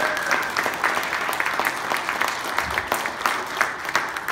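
Audience applauding: many hands clapping together in a large room.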